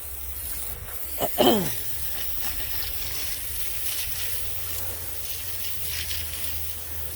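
Steady hiss of water spraying over a low steady hum, with a short falling vocal sound about a second and a half in.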